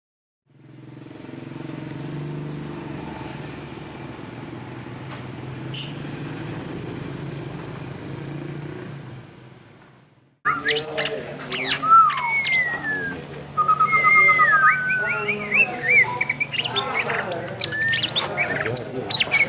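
A steady low hum that swells and fades for about ten seconds. Then, suddenly, several songbirds start chirping and whistling, with quick rising and falling notes and a short trill, over a continuing low hum.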